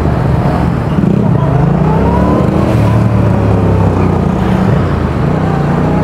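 Yamaha XSR700's parallel-twin engine and exhaust riding under way, the pitch rising as the throttle opens and dropping back twice, heard through a mic in the rider's back pocket.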